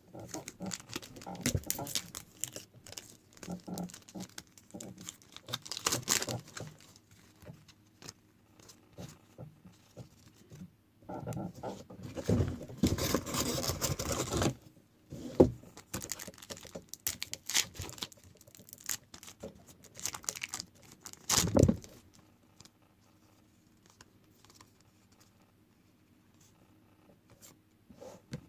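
Foil trading-card pack wrappers being torn open and crinkled, with cards handled and shuffled, in irregular bursts. It goes quiet for the last several seconds.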